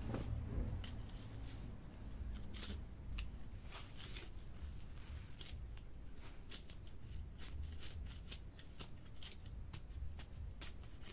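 A small hand trowel digging into a loose soil mound: many short, irregular scrapes and crunches as the blade stabs and scrapes the earth, over a low rumble.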